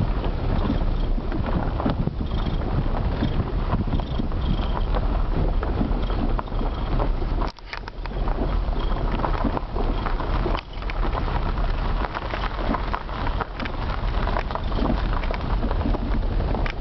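Wind buffeting the microphone at an open car window, over the tyre and running noise of the car moving slowly, with a brief lull about halfway through.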